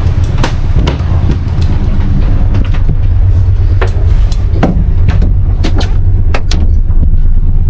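Sailboat's freewheeling propeller and shaft spinning under sail, a steady low rumble that sounds like the motor running though it is off. Something is fouled on the prop, which the sailor suspects is seaweed or a piece of net or rope. Several sharp knocks sound over it.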